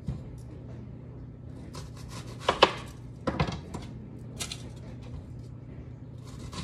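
Kitchen knife knocking on a cutting board as a red onion is cut: a few separate sharp knocks, the loudest a quick pair about two and a half seconds in, over a steady low hum.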